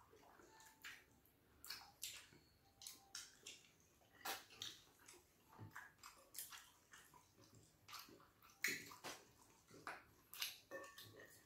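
Faint wet eating sounds of fufu and slimy ogbono soup eaten by hand: irregular lip smacks and sticky clicks from mouths and fingers.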